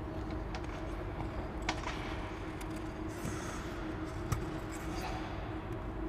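Ice-rink room tone: a steady low hum with a faint constant tone in it. About three seconds in, skate blades briefly scrape across the ice, and two single sharp knocks come, one before and one after.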